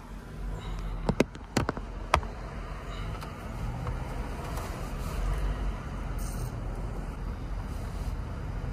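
A few sharp clicks and knocks in the first couple of seconds, then a steady low vehicle rumble.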